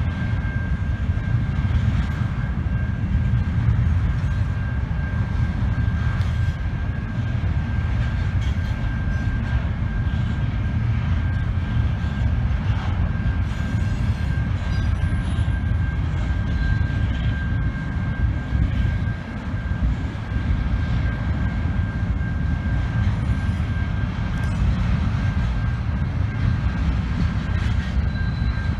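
Double-stack intermodal train of container-loaded well cars rolling steadily past: a continuous low rumble of wheels and cars, with a thin steady high-pitched tone over it.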